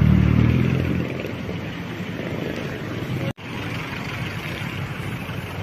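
Street traffic: a vehicle engine runs loudly close by in the first second, then eases into a steady hum of traffic, broken once by a brief dropout a little past halfway.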